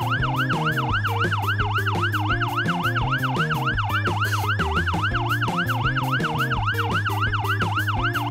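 Electronic siren sound effect warbling fast up and down, about three cycles a second, over background music with a steady bass beat.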